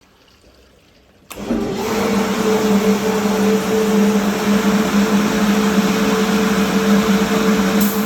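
Sutlick AIW 100 washing machine switched on about a second in, then running with a steady loud rushing noise and a low motor hum.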